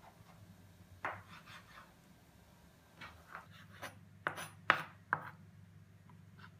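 Kitchen knife trimming fat from a raw chicken breast on a plastic chopping board: scattered short taps and scrapes of the blade on the board, the loudest a little under five seconds in, with a faint steady low hum underneath.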